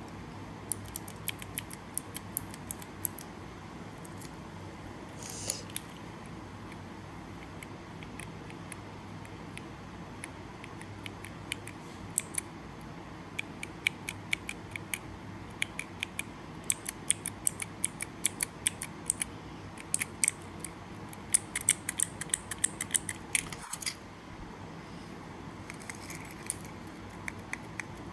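Sharp plastic clicks and clacks of keyboard keycaps, coming in irregular flurries that are densest in the second half.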